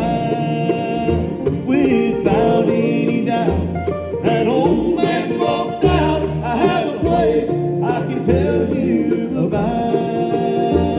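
Bluegrass gospel band playing on acoustic string instruments, a steady bass under plucked strings, continuing straight on from the sung chorus.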